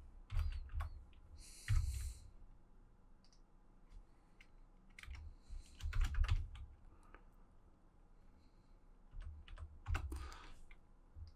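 Computer keyboard typing in a few short runs of keystrokes separated by pauses.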